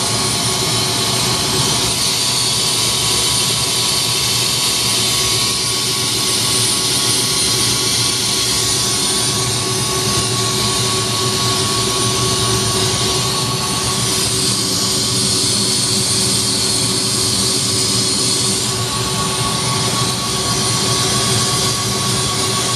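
Turbine helicopter's engine and rotor running, a steady loud whine with engine noise, heard from inside the cockpit.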